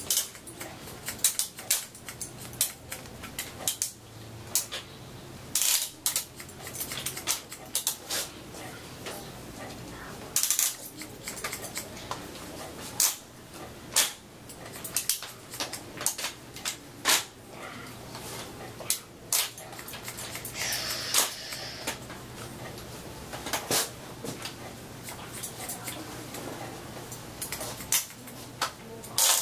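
Hair-cutting scissors snipping wet hair close to the microphone: sharp metallic snips at an irregular pace, some in quick runs of several.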